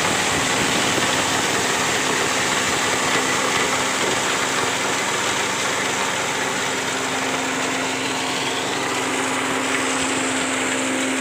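Engine-driven dry-coffee huller running under load, hulling coffee: a steady, loud mechanical noise with a constant low hum, as hulled beans stream out of its chute.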